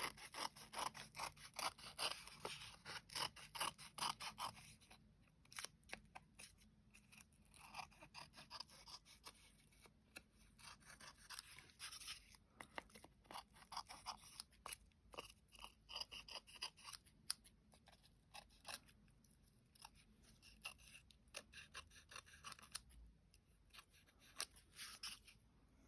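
Scissors snipping in quick runs of faint, sharp cuts with short pauses between, trimming excess paper napkin from the edges of a decoupaged ornament.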